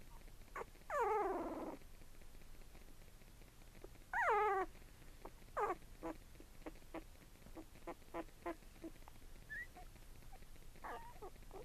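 Twelve-day-old Cavapoo puppies whining and squeaking: two loud whines that fall in pitch, about a second in and about four seconds in, among many short, faint squeaks.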